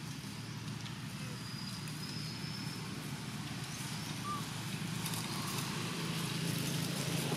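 Steady low hum, with soft rustling of dry leaf litter under walking macaques in the second half.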